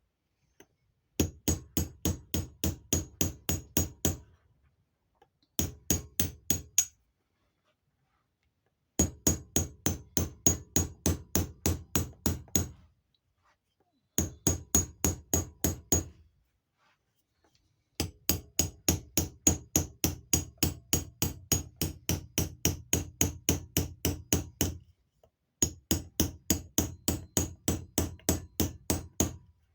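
Hammer tapping in six quick, regular runs of about four blows a second, with short pauses between the runs.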